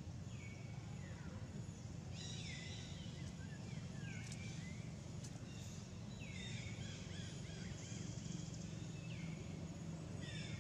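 Birds calling: repeated short falling whistled notes, one every one to three seconds, over a steady low hum.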